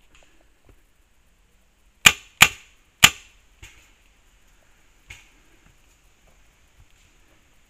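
Three sharp shots from a magazine-fed paintball marker, fired within about a second, followed by two fainter pops.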